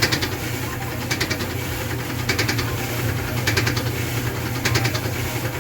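Clothes dryer running with its drum tumbling on a newly fitted drive belt: a steady low motor hum with a light rattle coming back about once a second. It is working again after the belt replacement.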